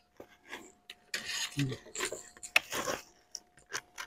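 Crisp tortilla chips crunching and rustling as metal tongs scrape and lift them off a parchment-lined baking sheet, in irregular scrapes with scattered sharp clicks of the tongs.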